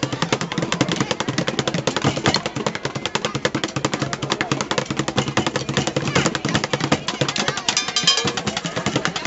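Street drumming on plastic buckets: a fast, unbroken run of sharp strikes.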